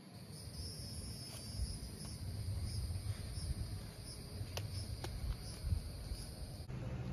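An insect's steady high-pitched trill, pulsing about twice a second, over a low rumble, with two sharp ticks about four and a half and five seconds in; the trill cuts off suddenly near the end.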